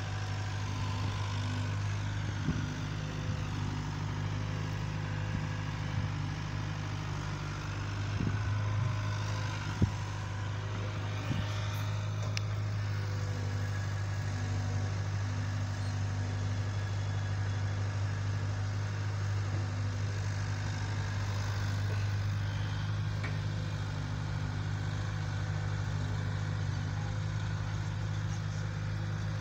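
An engine running steadily at an even speed, a low hum throughout, with a few short knocks, the sharpest about ten seconds in.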